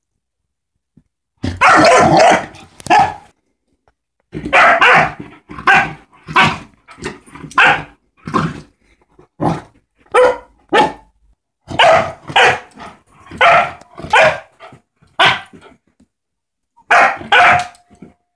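A yellow Labrador puppy barking in play, loud sharp barks repeated roughly once a second with a few short pauses.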